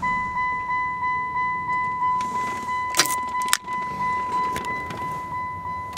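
1998 Plymouth Voyager's dashboard warning chime sounding as a steady pulsing tone, about three pulses a second, with the engine off. A couple of sharp clicks come about halfway through.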